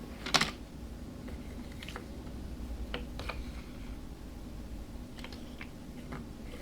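Small clicks and taps of plastic toy dollhouse pieces being handled, with one sharper, louder click about a third of a second in and a few lighter ones scattered after it.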